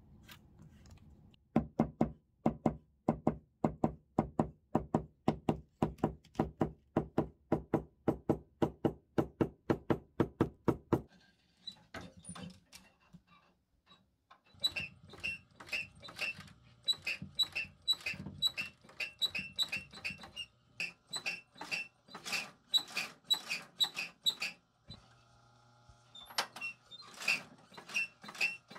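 Industrial leather sewing machine stitching slowly, an even run of needle strokes at about four a second. The stitching pauses twice, and the motor hums on its own for a moment near the end.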